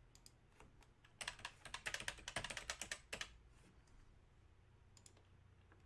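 Typing on a computer keyboard: a quick run of keystrokes for about two seconds, with a few single key clicks before and after.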